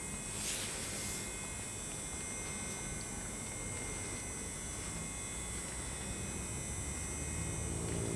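Steady electrical hum and buzz with several fixed high tones, and a brief high rustle about half a second in. Near the end a low vehicle rumble starts to rise.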